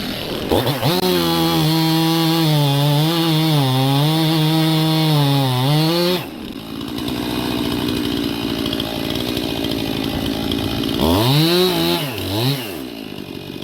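Stihl MS 271 two-stroke chainsaw at full throttle cutting through a cherry log, its pitch dipping and recovering under the load, then dropping to idle about six seconds in. Near the end the throttle is blipped twice, the engine rising and falling back to idle each time.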